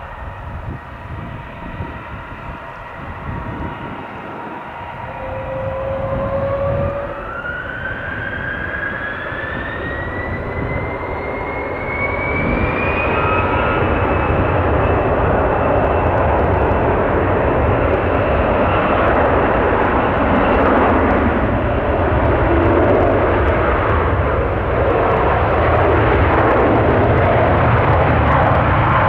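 Gulfstream G650's twin Rolls-Royce BR725 turbofan engines spooling up for takeoff: a whine that rises in pitch over several seconds, then the engines grow louder and settle into steady jet noise at takeoff thrust about halfway in.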